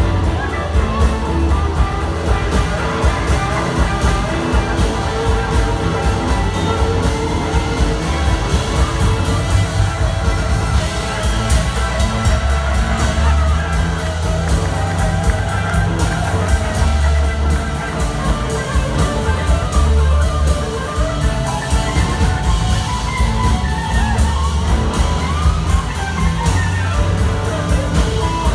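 Live blues-rock band playing: several electric guitars over a drum kit and bass, with a steady drum beat, heard from the audience.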